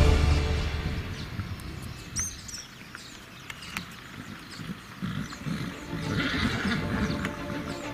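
A horse being led at a walk on a paved driveway: scattered hoof steps, with a short bird chirp about two seconds in. Music fades out at the start.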